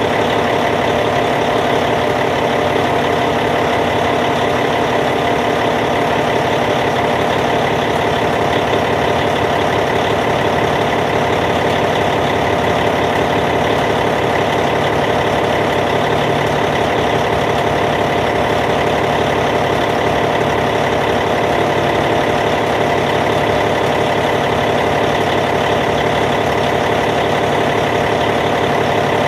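Caterpillar C15 inline-six diesel engine in a D8T bulldozer, idling steadily with an even, unchanging drone.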